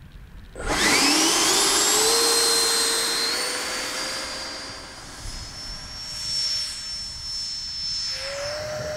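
The 80 mm electric ducted fan of a Freewing Avanti RC jet spooling up for takeoff. A whine starts suddenly about half a second in and rises in pitch, loudest over the next two seconds, then fades as the jet runs off and climbs away. Its pitch rises again near the end.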